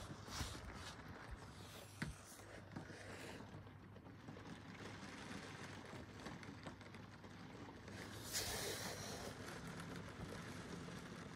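Heavy rain heard faintly through window glass: a low, steady hiss, with brief louder rushes at the start and about eight seconds in, and a single sharp tick about two seconds in.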